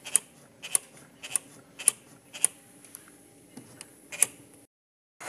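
Accelerator cable and throttle linkage of a Kia Opirus clicking sharply as the gas pedal is pressed and released over and over, about two clicks a second with some in quick pairs. The clicking cuts off shortly before the end.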